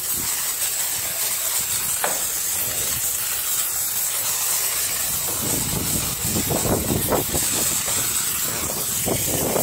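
A self-serve car wash foam brush sprays with a steady hiss. From about halfway, the brush scrubs back and forth over the car's body.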